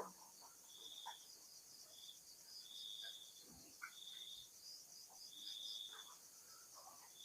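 Faint night insects: a steady high cricket trill, with a separate high-pitched call repeating about once a second, each call lasting from a fraction of a second to nearly a second.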